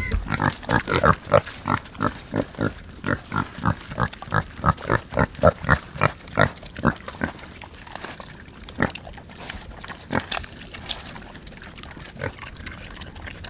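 Pigs chomping fallen pears: quick rhythmic chewing, about three chomps a second for some seven seconds, then only a few scattered chomps.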